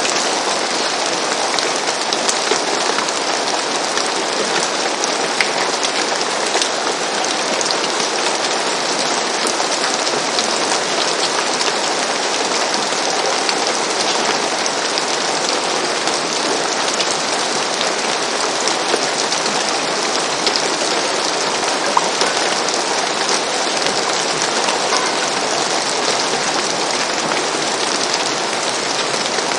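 Steady rain falling on a roof: an even hiss of rainfall with many individual drops ticking through it.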